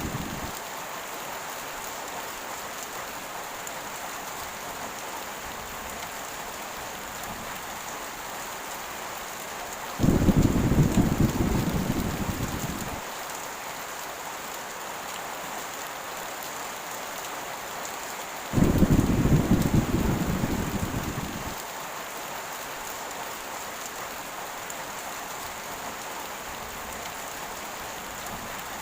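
Heavy rain falling steadily, with two low rumbles of thunder, about ten and nineteen seconds in, each starting suddenly and fading away over about three seconds.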